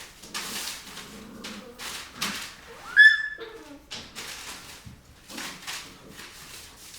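Rottweiler puppies play-fighting: a run of short scuffling, breathy noises, with one sharp, high yelp about three seconds in and a brief lower whine right after it.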